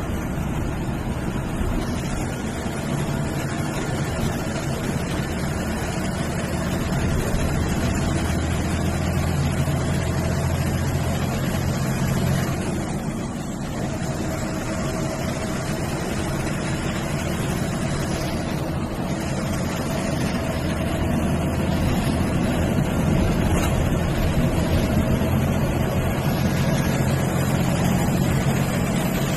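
A bus's diesel engine running under way with steady road noise. The engine eases off briefly twice near the middle, and a thin high whistle, which the title calls a turbo whistle, glides up and down above it.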